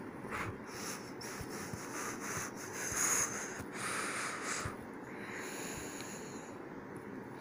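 Soft rubbing and breathing-like noise close to the microphone, with a few faint clicks, swelling between about half a second and five seconds in.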